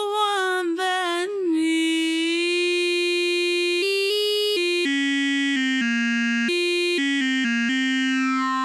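A sung vocal sample in Cubase 13's Sampler Track, using the Spectral Vocal warp mode, slows down and freezes into one held sung vowel tone. From about four seconds in, the frozen vowel is played as a playable instrument, stepping between different pitches with several quick note changes near the end, and it finishes on a long lower note.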